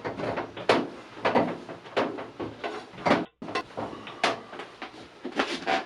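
Knocks and clatters of hard parts being handled and set in place while a lathe is assembled, a few irregular strikes a second. The audio cuts out briefly a little past halfway.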